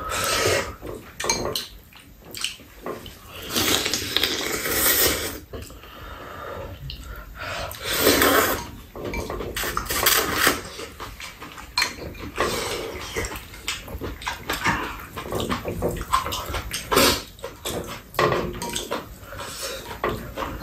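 Two people eating ramen: repeated slurps of noodles and broth, with metal chopsticks and spoons clicking against the bowls between them.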